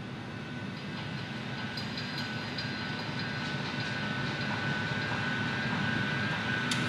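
A train running, the noise growing steadily louder, with a steady high-pitched whine and faint ticks.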